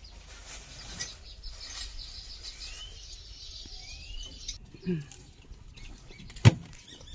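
Birds chirping, with a few short rising calls over a faint background; a single sharp knock about six and a half seconds in is the loudest sound.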